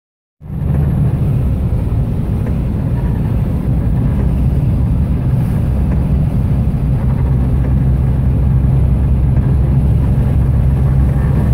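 A truck's engine and its tyres on the wet road, heard from inside the cab while driving: a steady low drone with road hiss above it, starting about half a second in.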